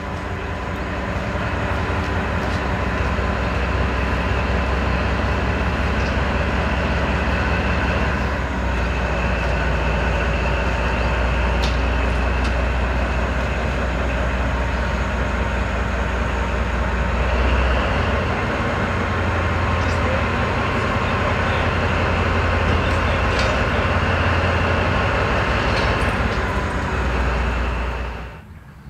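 DR class 119 diesel-hydraulic locomotive running under power: a steady low engine throb under a steady whine, with a few sharp clicks. It cuts off suddenly near the end.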